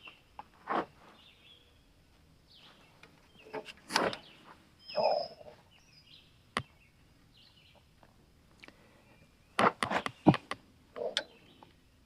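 Scattered light clicks and knocks of hand tools being handled on the sawmill's blade-tension bolt, a few at a time with quiet between, the loudest cluster near the end.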